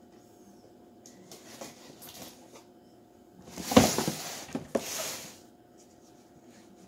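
A cardboard box being cut open with a knife and its flaps torn: faint scraping at first, then two loud rasping tears a little past the middle.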